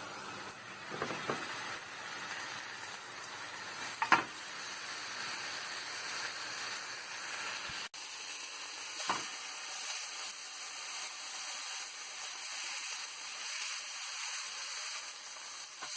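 Chicken frying in a pan with a steady sizzle. There are a few short knocks, the loudest about four seconds in.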